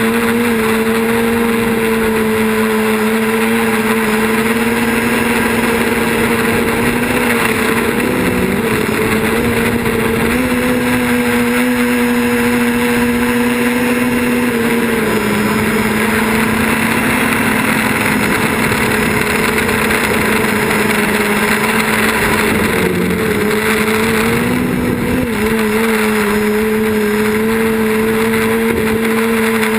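Quadcopter's electric motors and propellers whining steadily in flight, with the pitch dipping and rising briefly a few times as the throttle changes.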